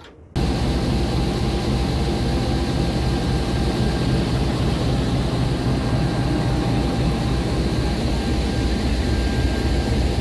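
Diesel locomotive engine running close by: a loud, steady drone with a thin steady whine above it, starting abruptly a moment in.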